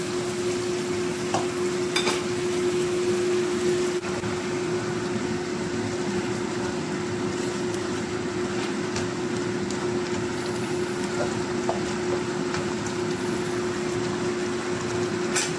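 Chicken curry with potatoes simmering and sizzling in a wok, with a spatula clicking against the pan a couple of times in the first seconds. A steady hum runs underneath, and there is one sharp click near the end.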